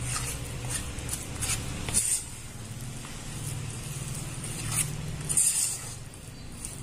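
A utensil stirring thick wheat-flour cake batter in a stainless steel bowl: soft squishing and scraping, with scattered clicks against the metal. A steady low hum runs underneath.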